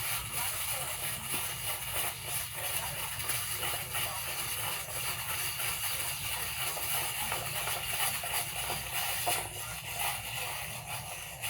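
Irregular scraping and clicking of a 100-foot reel tape measure being handled and wound back in, over a steady hiss.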